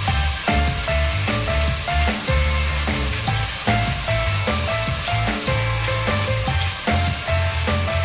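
Food sizzling as it fries in a pan, a steady hiss, with background music of short repeated notes over a bass line.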